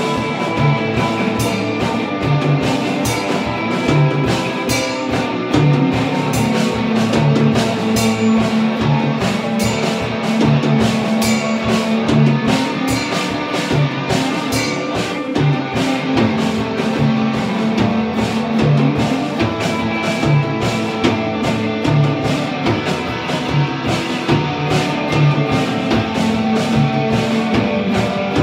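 Punk–industrial metal played live by two electric guitars and a Gretsch drum kit: a continuous distorted guitar riff over a steady drum beat.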